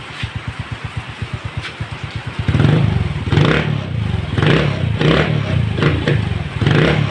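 Suzuki Smash 115's single-cylinder four-stroke engine idling with an even putter, then revved in repeated short blips of the throttle from about two and a half seconds in. It is running very quiet on fresh oil just after an oil change and tune-up.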